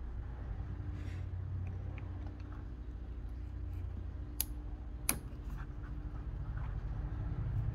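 Two short, sharp clicks, a little under a second apart midway, over a steady low hum: small parts and tools knocking as a carburetor is taken apart by hand.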